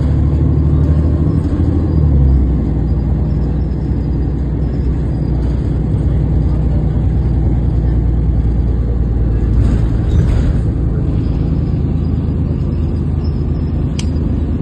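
Steady low rumble of a moving city bus heard from inside the passenger cabin, with a single sharp click near the end.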